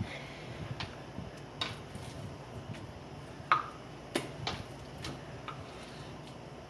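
Kitchen knife cutting raw chicken breast on a cutting board: scattered light taps and clicks of the blade on the board, with one louder knock about three and a half seconds in.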